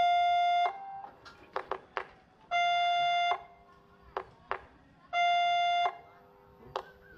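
Railway level crossing's electronic warning sounder going off for an approaching train. A long, even tone of under a second repeats about every two and a half seconds, with quick bell-like dings between the tones.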